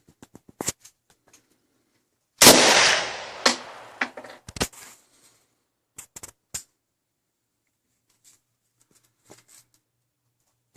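A single loud rifle shot about two and a half seconds in from a Vepr rifle in 7.62x39, ringing out for over a second, followed by a few smaller sharp cracks and clicks.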